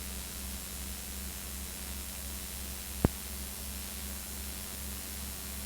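Steady hiss and low electrical hum of an old home-video recording with no programme sound, with a single sharp click about three seconds in.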